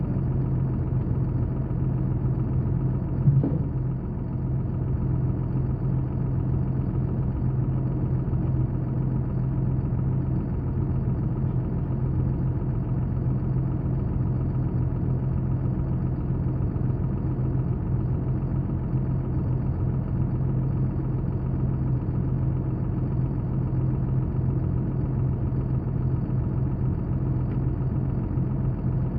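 An engine idling steadily, with one brief knock about three seconds in.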